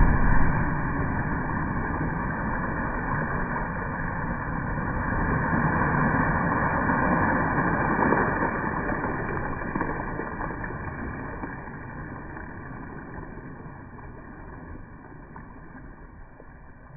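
Water splashing and churning after a person jumps into a spring from a dock. It is loudest at the start, swells again about eight seconds in, then fades away.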